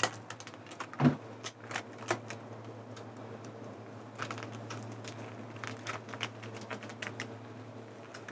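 Scattered clicks, taps and light knocks of small objects being handled and moved about, with one louder knock about a second in, over a steady low hum.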